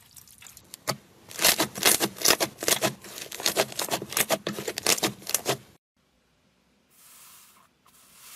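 Dense, loud crunching and crackling as hands squeeze and crush a crumbly material, starting about a second in and cutting off abruptly near six seconds. A brief soft rustle follows near the end.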